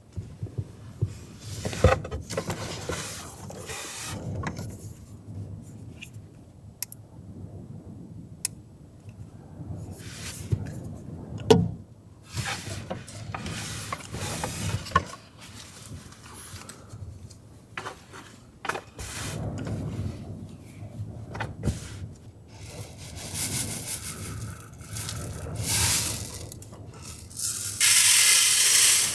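Things being handled at close range: rubbing, rustling and scraping with scattered sharp clicks and knocks. A louder hissing rush lasts about a second near the end.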